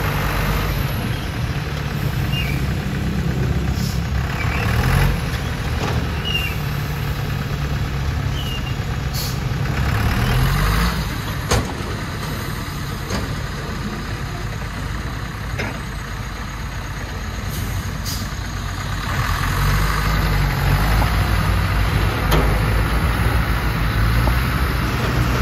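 Hoa Mai light dump truck's diesel engine running while it tips a load of soil, its pitch rising about ten seconds in, with a single sharp knock shortly after. Near the end the engine grows louder as the truck moves off across the mud.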